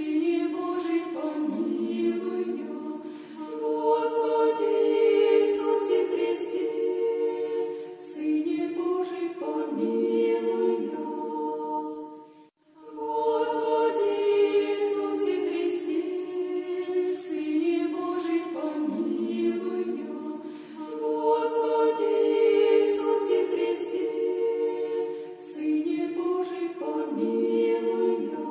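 A cappella church choir singing a slow Orthodox chant in sustained chords. The same short phrase is sung twice, with a brief pause for breath about twelve seconds in.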